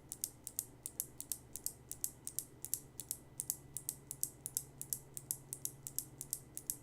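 Kailh Box White clicky mechanical keyboard switch pressed and released repeatedly, giving a fast run of sharp, crisp clicks, about five a second.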